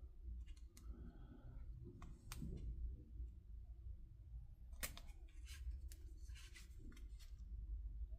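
Faint, scattered small clicks and taps from working inside an HP EliteBook 840 G6 laptop's keyboard assembly, seating ribbon cables in their connectors and latching them down. Over a low steady hum.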